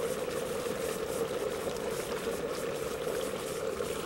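Liquid nitrogen boiling steadily in a steel dewar around a metal cryocup and chuck dipped into it, as the warm assembly is chilled and the specimen in OCT freezes.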